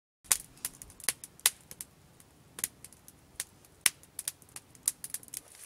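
Small campfire of split kindling crackling: irregular sharp pops and snaps, a few a second, starting just after a moment of silence.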